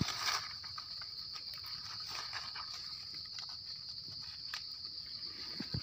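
Steady high-pitched drone of insects in the forest, with light crackling of dry fallen leaves being brushed aside by hand.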